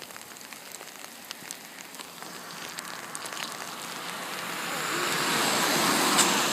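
Sleet pellets ticking as they hit surfaces in a heavy sleet storm, with a rushing hiss that swells louder over the last few seconds.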